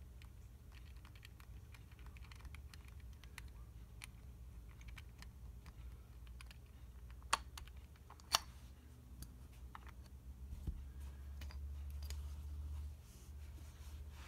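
Faint scattered clicks and light scrapes as the grip screw and aftermarket stag grip panel are worked off a Colt Official Police revolver's steel frame, with two sharper clicks near the middle.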